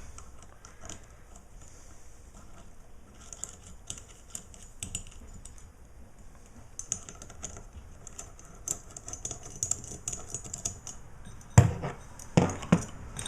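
Light metallic clicking and ticking of hand tools and loosened bolts on an aftermarket Volvo Penta raw water pump as its housing is taken apart, then a few louder knocks near the end as the metal parts are handled.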